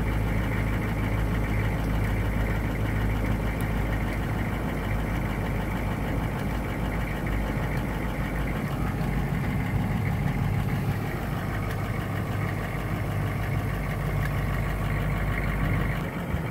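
1998 Hummer H1's 6.5 L turbo-diesel V8 idling cold, just after starting, with slight rises and dips in loudness; the owner is recording it for an idle-surging complaint.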